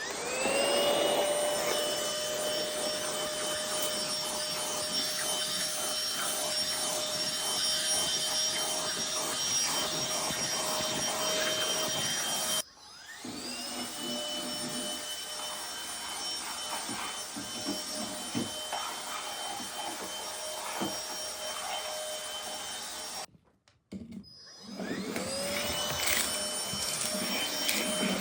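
Cordless handheld vacuum cleaner's motor running with a steady high whine. It is switched off and straight back on about twelve seconds in, and off again briefly near the end before restarting, each start spinning up in pitch.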